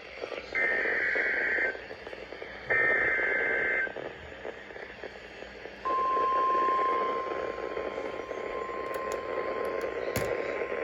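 Emergency Alert System broadcast from a NOAA Weather Radio station: two short bursts of the warbling SAME digital header, each about a second long, then, about six seconds in, the steady single-pitch 1050 Hz warning alert tone, all over radio static hiss. It marks the start of a new weather warning being sent.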